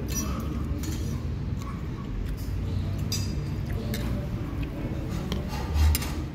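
Metal spoon and fork clinking against a ceramic plate of soto, a few sharp clinks, over a steady low background rumble. A louder dull thump comes near the end.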